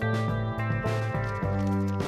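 Background music: pitched instrumental notes with a plucked-guitar sound, changing every half second or so.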